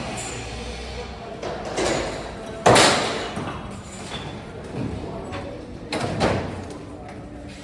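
Several irregular bangs from framing work on a building under construction, each ringing out and fading over about a second; the loudest comes a little under three seconds in.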